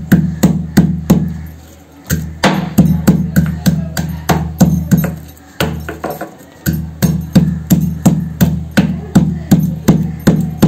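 Pestle pounding garlic and ginger in a stone mortar: repeated thuds at about three strokes a second, each ringing briefly, with two short pauses, near 2 s and 6 s in.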